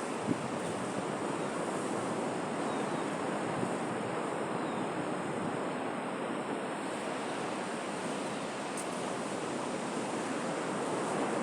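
Sea surf washing in a steady rush of noise, swelling and easing slightly.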